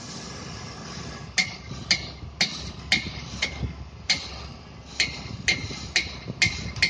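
A hammer striking metal, about eleven blows at roughly two a second, each with a short ringing, starting about a second and a half in. Steady site noise runs underneath.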